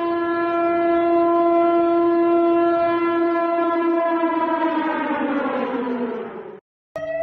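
Warning siren played in reverse: a steady wail with a stack of overtones that slides down in pitch over a couple of seconds and cuts off abruptly. After a brief gap, a new steady alarm tone starts.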